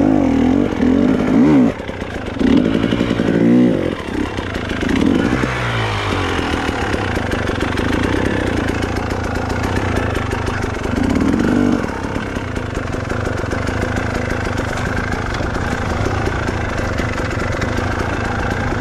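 Honda CRF trail motorcycle engine revving in a series of surges, its pitch rising and falling, then running at a steadier pitch from about twelve seconds in.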